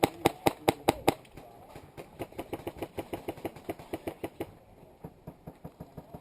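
Airsoft guns firing: a quick string of loud, close shots at about five a second for the first second, then a steady run of fainter shots at a similar pace that thins out about four and a half seconds in.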